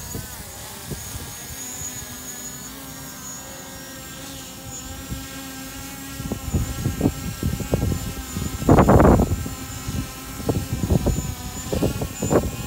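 DJI Mavic Pro quadcopter hovering with a 3-axis gimbal and FLIR Boson thermal camera mounted on top: a steady propeller whine made of several pitches. From about halfway in, gusts of strong wind buffet the microphone, the strongest about two-thirds of the way through.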